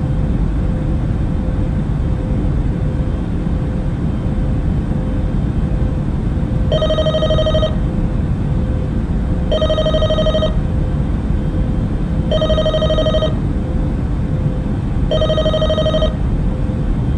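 Telephone ringing four times, each warbling ring about a second long and coming roughly every three seconds, starting about halfway through, over a steady low aircraft-cabin drone.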